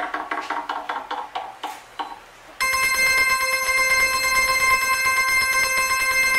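Backing music fades out over a few sharp clicking percussion hits, then about two and a half seconds in a bell starts ringing abruptly and keeps ringing steadily at a high pitch.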